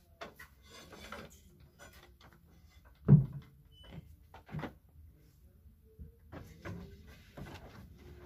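A single heavy, low thump about three seconds in, from a person stepping up onto a hollow wooden display crate. Light clicks and knocks come around it, from clothes on hangers being handled on a wall display.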